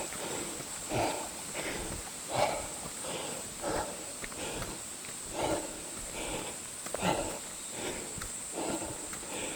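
A runner's heavy breathing while running uphill, with hard, rhythmic exhales about every one and a half seconds.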